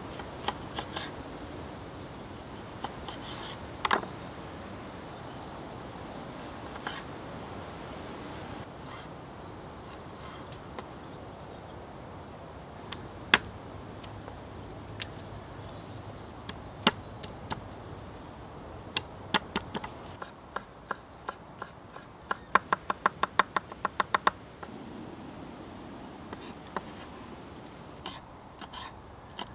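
Kitchen knife cutting food on a wooden chopping board: scattered single knocks of the blade against the board, then a quick run of about a dozen chops about three-quarters of the way through.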